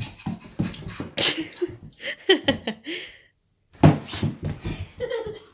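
A young child laughing and vocalising in short bursts, with quick footsteps on a laminate floor.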